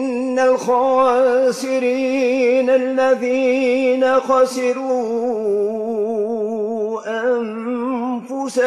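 A man's voice chanting a Quran recitation in the Maghrebi style. He holds long drawn-out vowels with a quavering ornament on each note.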